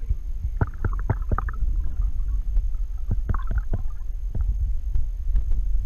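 Underwater sound: a steady low rumble of water moving around the camera. Two clusters of sharp clicks and knocks with some short squeaky tones come about half a second in and again past three seconds.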